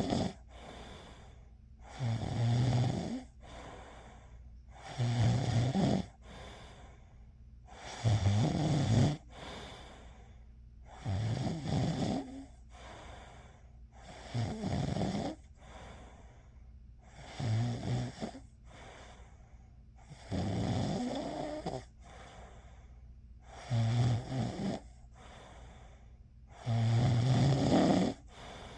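A person snoring steadily, a rough low snore on each breath about every three seconds, with softer breathing between the snores.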